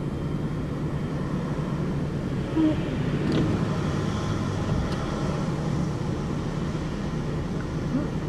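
Steady low rumble of a motor vehicle running.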